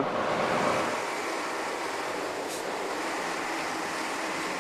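Steady rushing noise of a vehicle driving over snow, tyre and running noise without a clear engine note, with one faint click about two and a half seconds in.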